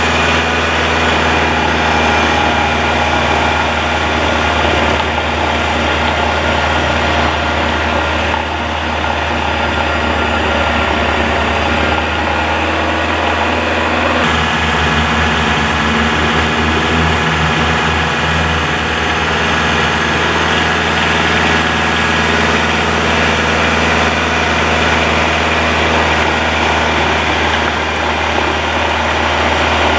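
Kubota tractor's diesel engine running steadily. The low engine note wobbles for a few seconds about halfway through.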